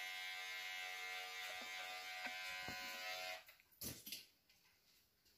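Electric hair clippers buzzing steadily while cutting hair, then switched off about three and a half seconds in, followed by a few faint clicks.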